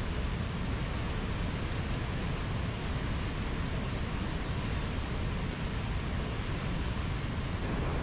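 Waterfall: a steady, full rush of falling water, deepest in the low end. Near the end the hiss at the very top thins out abruptly.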